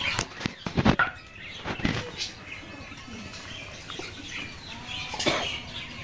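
A bird's wings flapping in a quick flurry about half a second in, with shorter bouts near two seconds and again near five seconds.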